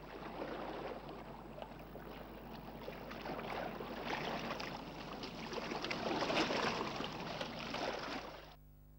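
Harbour water lapping and splashing with a crackly hiss, swelling twice and cutting off near the end.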